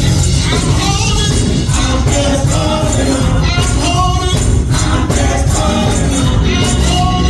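Gospel music with sung voices over a band: heavy steady bass and a jingling percussion beat.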